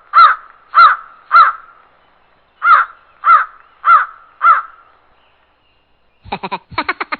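Crow cawing: seven harsh caws at an even pace, three then a short pause and four more. Near the end a fast run of sharp clicks, about ten a second.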